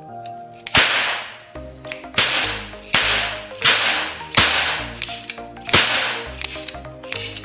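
Toy cap-gun revolver firing caps packed with firecracker powder. It gives about seven loud, sharp cracks, spaced roughly 0.7 to 1.5 s apart, each with a hissing tail. Background music plays throughout.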